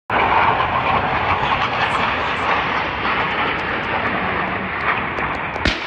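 Steady, loud roar of a low-flying Su-25 attack jet's twin turbojet engines, cutting in abruptly, with a single sharp crack near the end.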